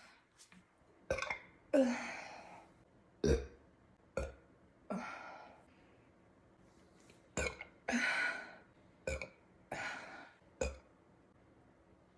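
A woman burping repeatedly after chugging carbonated seltzer. There are about ten burps, some short and sharp and others drawn out and breathy, with short pauses between the clusters.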